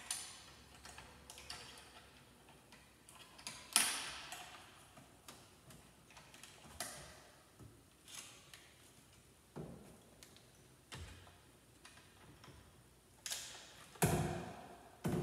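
Irregular clicks and taps of wire connectors being pushed onto a microwave touch panel's plugs by gloved hands, with the metal panel knocking as it is handled. A louder knock comes about four seconds in and two more near the end.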